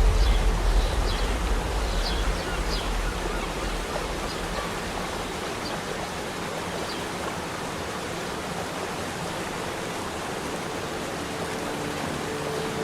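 Waterfall rushing, a steady even hiss of falling water, with a low rumble that fades over the first two seconds. A few short high chirps sound over it in the first three seconds.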